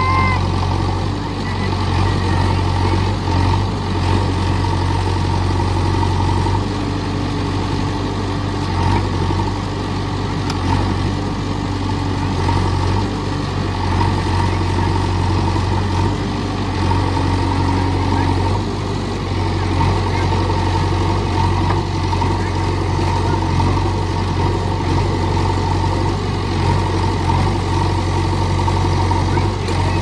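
JCB 3DX Xtra backhoe loader's four-cylinder diesel engine running steadily with a low hum while the machine works in deep mud. The note drops briefly and picks up again a few times as the backhoe arm moves.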